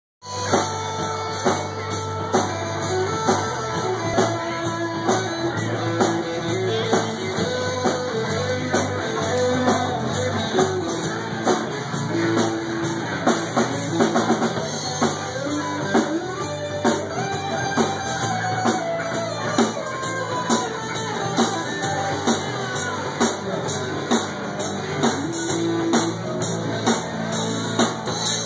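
Live rock band playing: drum kit keeping a steady beat with a hit about once a second, under bass and acoustic and electric guitars.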